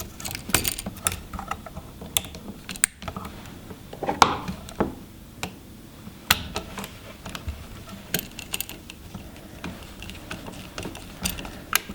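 Irregular small clicks, taps and scrapes of a wall light switch being handled as the ground wire is bent around the green ground screw and the screw is tightened with a screwdriver.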